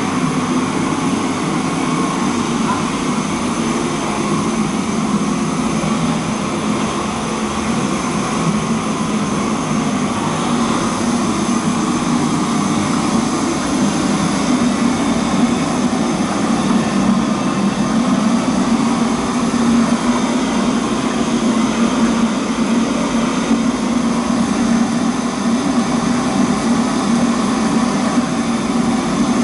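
Steady roar of a commercial gas wok range running, its burners and blower going without a break.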